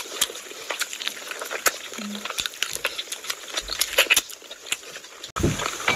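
Close-miked eating sounds: wet chewing and lip smacks, with fingers squishing curry and rice, making a quick irregular run of sharp clicks. The sound breaks off abruptly a little after five seconds in.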